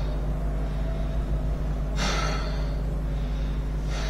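A man breathing heavily through the mouth, with two audible breaths about two seconds apart, over a steady low hum.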